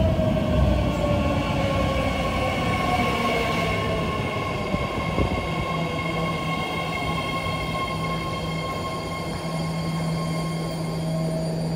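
BART Fleet of the Future (Bombardier-built) train pulling into an underground station and braking to a stop. Its electric propulsion whines in a falling pitch over the first few seconds, with steady higher whines and the wheels' rumble, and a low steady hum sets in about four seconds in as the train slows.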